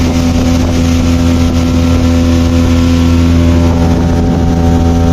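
Motorboat engine running at a steady, unchanging pitch, heard from on board, over a steady hiss.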